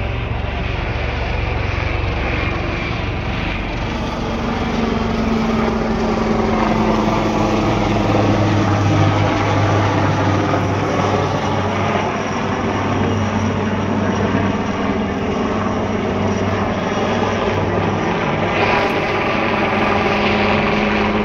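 Military aircraft flying low overhead: a steady engine drone with tones that bend in pitch through the middle as it passes over.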